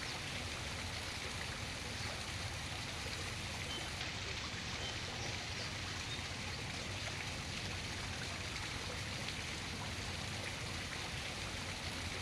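Steady, even rushing outdoor ambience with no distinct events, of the kind made by running water or wind. There are a few faint, short high chirps a few seconds in.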